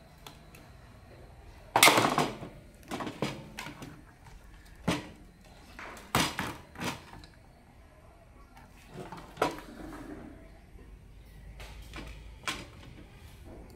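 Scattered knocks and clatter of a screwdriver and the plastic parts of a solar LED lamp being handled and fitted back together on a wooden bench. About ten separate knocks, the loudest about two seconds in.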